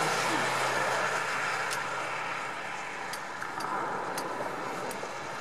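Motor-vehicle noise, a steady rush that gradually fades, with a few faint ticks.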